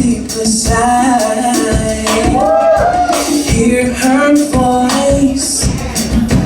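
A live band with keyboards, drums, bass and hand percussion plays a mid-tempo R&B-pop cover. Pitched melody lines glide over regular drum hits and a steady shaker-like hiss.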